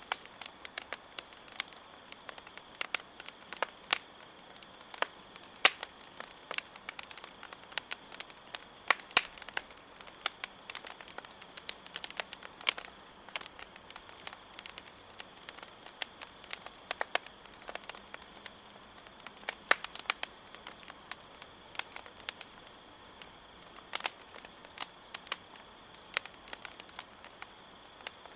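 Campfire crackling, with frequent irregular sharp pops of burning wood, over a steady high cricket trill.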